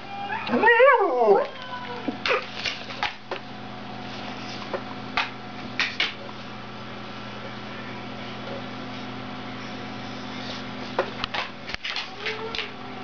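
Siberian husky giving one short, wavering vocal about half a second in, its pitch swinging up and down, a brief bit of husky 'singing'. A scattering of clicks and knocks follows over a steady low hum.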